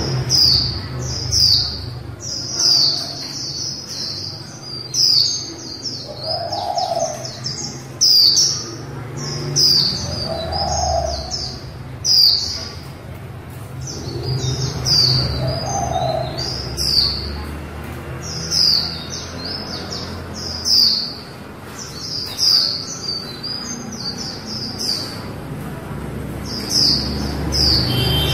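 Female white-eye giving quick, high-pitched chattering chirps in short clusters about a second apart, the kind of call keepers use to set male white-eyes singing. A steady low hum runs underneath.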